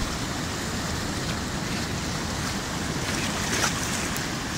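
Sea surf washing in over and around low rocks, a steady rush of water, with one slightly louder splash about three and a half seconds in.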